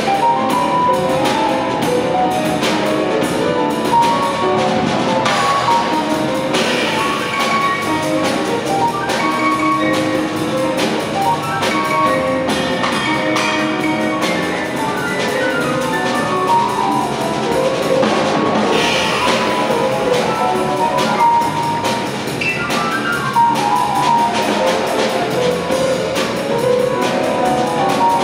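Jazz quartet of saxophone, piano, bass and drum kit playing live. Quick runs of notes, a couple of them falling fast in pitch, sit over a dense, steady stream of cymbal strokes from the drum kit.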